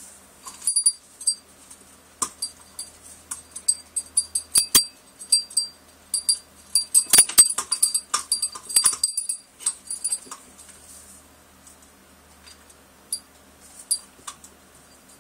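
Small metal bell on a parrot toy jingling on and off as a blue-crowned conure plays with it, busiest in the middle, with a few sharper knocks of the toy.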